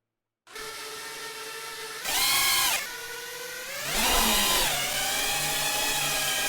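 FPV quadcopter's brushless motors whining, starting abruptly about half a second in. The pitch jumps up sharply twice as the throttle is punched, once near two seconds in and dropping back, then again near four seconds, settling at a higher whine.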